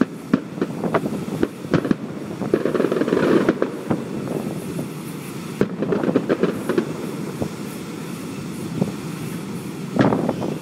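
Aerial fireworks going off: a rapid string of bangs and crackles over a continuous rumble of explosions. The bangs are densest near the start, about six seconds in, and again near the end.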